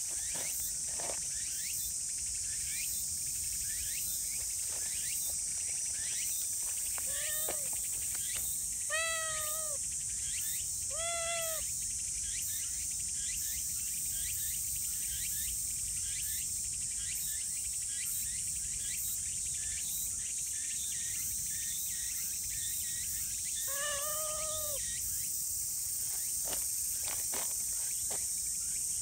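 Tabby-and-white cat giving several short meows, a few close together in the first half and two more near the end, over a steady high-pitched chorus of insects.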